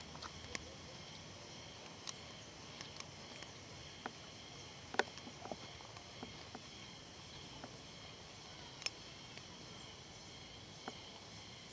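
Quiet outdoor background hiss broken by scattered sharp clicks and taps, the loudest about five seconds in.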